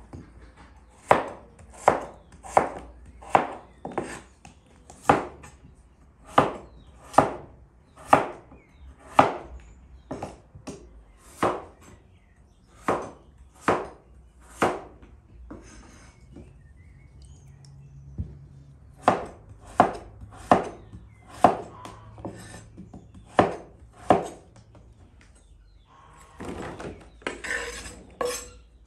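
Kitchen knife slicing through raw potatoes and knocking on a wooden cutting board: a steady run of sharp chops about one a second, with a pause of a few seconds midway. Near the end there is a scraping clatter as the cut potato pieces slide off the board onto a tray.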